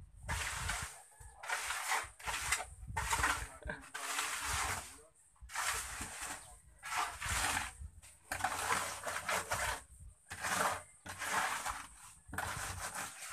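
Repeated scraping strokes on a rough cement floor, roughly one a second with short gaps between them.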